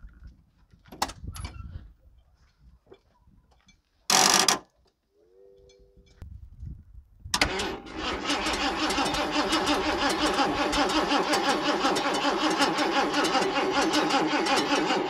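Ford 5.0-litre V8 of a 1986 Mercury Grand Marquis cranking over on its starter for about eight seconds without catching, while its new fuel pump is not being switched on through the relay. A short loud burst comes about four seconds in, before the cranking.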